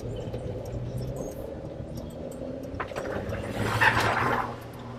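Diesel engine of a Hymer ML-T motorhome running steadily under load as it climbs a very steep street, with a louder rushing swell about three and a half seconds in that lasts around a second.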